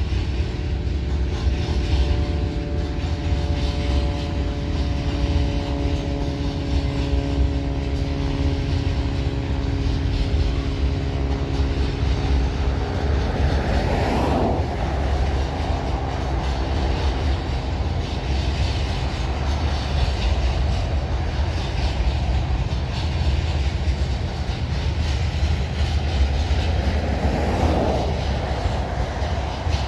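Freight train of covered hopper cars rolling past at steady speed: a continuous low rumble with the clatter of wheels over rail joints. A set of faint steady tones fades out about halfway through, and there are two brief swells of noise, one about halfway and one near the end.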